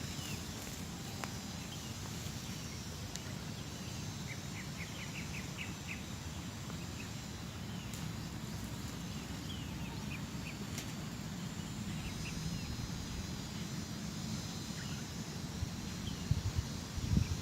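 Outdoor ambience: a steady low rumble with scattered short bird chirps, including a quick run of about six chirps around five seconds in. A few low bumps come near the end.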